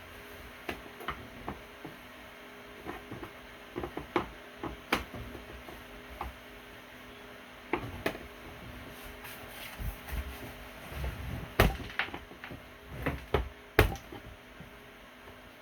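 Irregular clicks and knocks of things being handled, two louder knocks near the end, over a faint steady hum.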